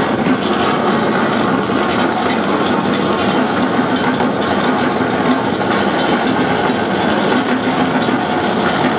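Experimental noise music: a dense, steady wash of noise, with a faint low hum coming and going.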